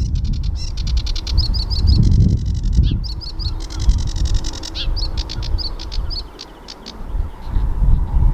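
Sedge warbler singing: a fast chattering run of repeated chirps, trills and short whistled phrases, which stops about six seconds in. A loud low rumble lies underneath.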